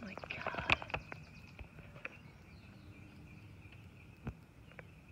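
Plastic dog-food bag rustling and crackling as it is handled, mostly in the first second, with one more click about four seconds in, over a steady high-pitched whine.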